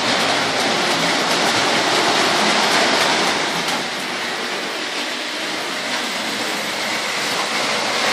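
Postwar Lionel O-gauge toy trains running on three-rail tinplate track: a steady whirring rattle of wheels and motors, a little quieter from about four seconds in.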